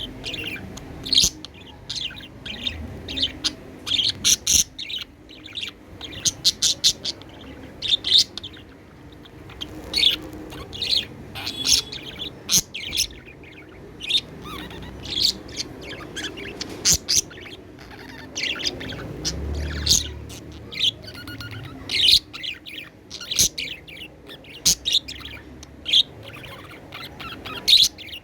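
Budgerigar chirping: a quick, irregular run of short, sharp, high-pitched chirps and warbles.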